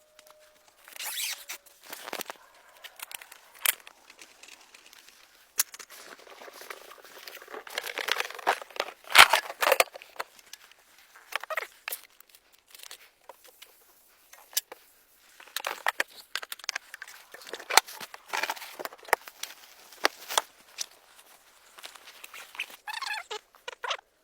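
Irregular rustling, crinkling and tearing of material with sharp clicks and snaps, loudest about nine seconds in: hands-on shelter-building noises. A rapid chattering sound starts near the end.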